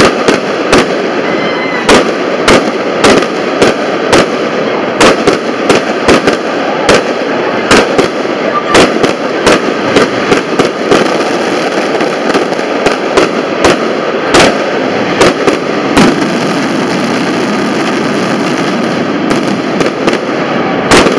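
Fireworks display: aerial shells bursting in a rapid, irregular string of sharp bangs, several a second at times. The bangs stop about three quarters of the way through, leaving steady background noise, and one more comes near the end.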